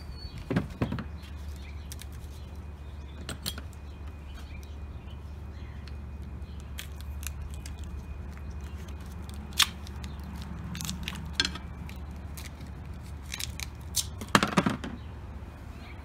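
Light clinks and clicks of small metal S-hooks and their card packaging being handled, scattered through, with a louder cluster of clinks near the end, over a steady low hum.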